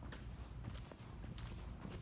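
Footsteps walking across a grass lawn: soft, irregular steps with a few short rustling sounds.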